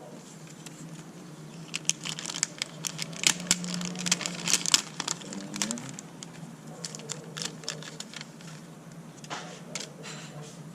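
Plastic parts packaging crinkling and crackling as it is handled, in a flurry of sharp crackles for a few seconds and a sparser run later, over a faint steady low hum.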